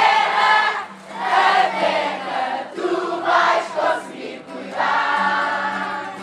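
A crowd of children and adults singing a camp hymn together in short phrases, with a guitar playing along.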